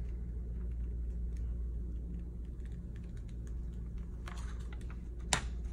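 Clear carrier sheet being peeled off freshly heat-pressed iron-on vinyl on a t-shirt: a run of small crackling ticks, with a brief rustle about four seconds in and a sharp click just before the end.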